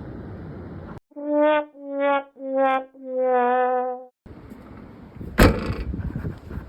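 A sad-trombone 'wah-wah-wah-waaah' sound effect: four brass notes stepping down in pitch, the last held longest, the comic cue for a failure. Outdoor noise then returns, with one sharp knock about five and a half seconds in.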